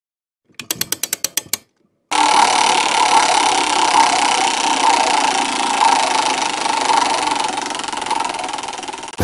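Game-show spinner sound effect: a quick run of about ten sharp clicks about a second in, then a steady ratcheting rattle from about two seconds in that cuts off abruptly at the end.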